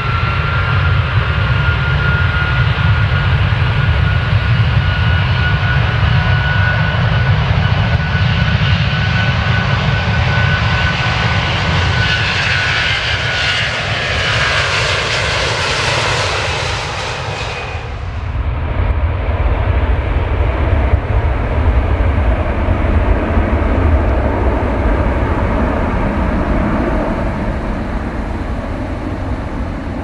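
Airplane taking off: engine noise with a steady whine that creeps up in pitch over a heavy low rumble. A rushing noise builds, then falls away suddenly about eighteen seconds in. The low rumble carries on and dies down near the end.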